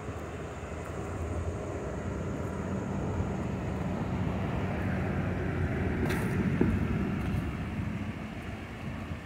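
A motor vehicle passing on the road, its low engine rumble swelling to a peak about six to seven seconds in and then fading. A steady rush of water from a rocky creek runs underneath.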